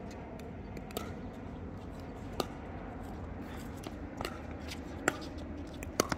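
Pickleball rally: paddles hitting a plastic pickleball back and forth, about five sharp pocks one to one and a half seconds apart, with the loudest near the end.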